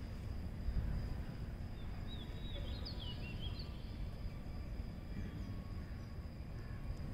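Outdoor ambience: a steady low rumble with a thin, steady high whine over it, and a short run of quick bird chirps about two to three and a half seconds in.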